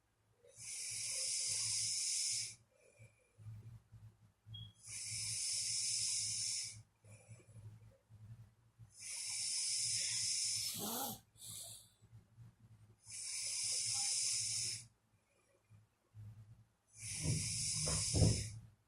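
A sleeping person snoring: five slow, hissing breaths about four seconds apart, with a low snore sounding near the end of the third and through the last.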